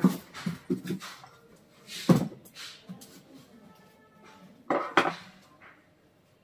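Handling knocks and clatter as a chainsaw is set down on its cardboard box and small parts on the counter are moved: a few light knocks at first, a loud knock about two seconds in, and another pair of knocks about five seconds in.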